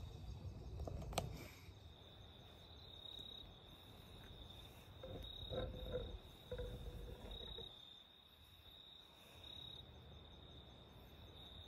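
Crickets chirping in a faint, steady high trill that pulses slightly, over a soft low rumble, with a single click about a second in.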